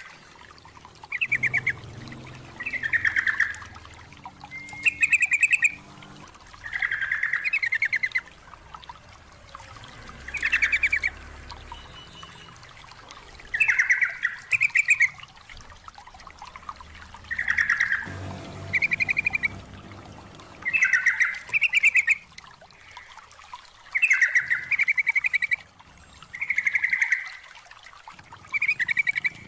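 Sooty-headed bulbul (trucukan) singing: a string of short, fast-rolling phrases, one every second or two.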